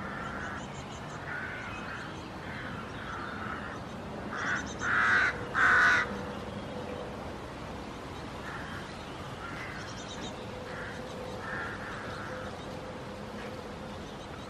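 A run of short, harsh animal calls repeated over and over, the three loudest coming close together about halfway through, with softer calls before and after.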